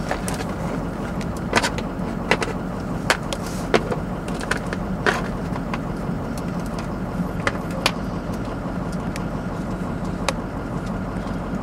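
Small plastic toy figures tapping and clicking against a vehicle's plastic centre console, a scatter of sharp clicks, over the steady low hum of the vehicle heard from inside the cabin.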